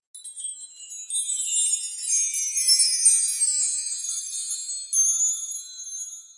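Chimes tinkling: many overlapping high ringing tones that start suddenly, build to a dense shimmer about a second in, and thin out near the end.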